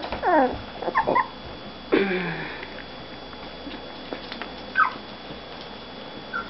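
Young puppies whimpering and yipping: several quick high whines that fall in pitch in the first second or so, a longer falling whine about two seconds in, and a short squeak near the five-second mark.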